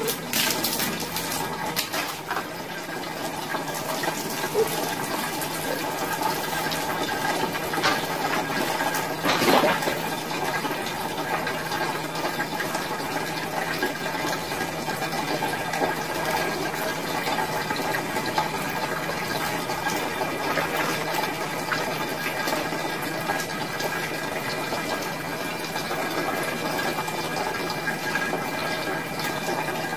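Water running steadily in a small washroom, with a brief louder splash about nine and a half seconds in.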